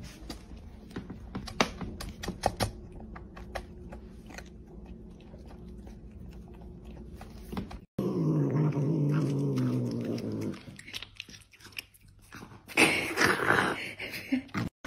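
A kitten eating dry cat food from a bowl, with many small clicks and crunches of kibble. After a cut, a cat gives a low, wavering growl for a couple of seconds while biting into food held in its paws. Near the end comes loud, wet chewing.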